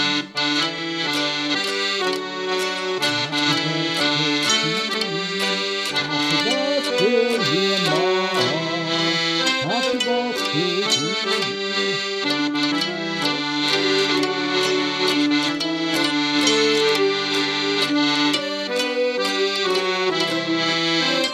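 Piano accordion, fiddle and mandolin playing a tune together: held accordion chords and bowed fiddle notes with the mandolin's plucked strokes.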